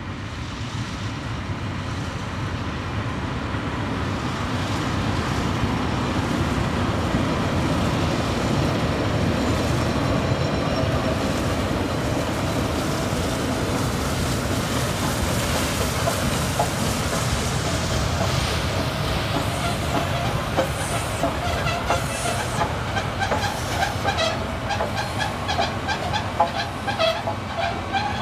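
Beyer Garratt steam locomotive 6029, an articulated NSWGR AD60 class, running past with a steady heavy rumble that grows louder over the first few seconds as it draws level. In the second half its passenger carriages follow, their wheels clicking over the rail joints in a quickening clickety-clack.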